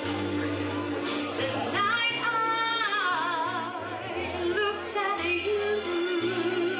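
A woman singing a song with wide vibrato on long held high notes, over musical accompaniment with a steady bass line.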